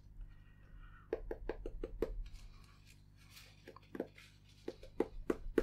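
Fingertips tapping on the glass touchscreen of an Amazon Echo Show 5: a quick run of light taps in the first couple of seconds, then scattered taps. The screen is faulty and gives no response to them.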